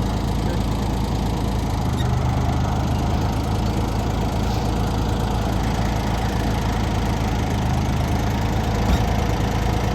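Engine of a bucket loader running steadily at idle while it lifts a load, with one short knock about nine seconds in.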